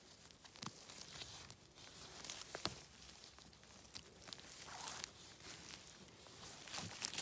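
Twigs, pine needles and wet forest-floor litter rustling and crackling as a gloved hand reaches in and picks mushrooms, with irregular sharp snaps and clicks, the strongest a little before three seconds in and near the end.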